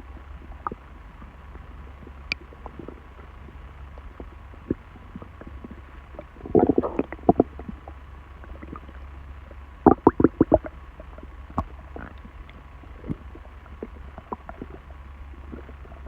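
A human stomach rumbling and gurgling in short irregular bursts, with a quick run of gurgles about seven seconds in and another about ten seconds in.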